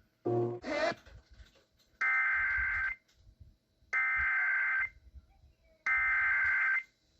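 Emergency Alert System SAME header: three identical buzzy digital data bursts, each just under a second long and about a second apart, sent to start a new alert. A short rising sweep comes about half a second in, before the bursts.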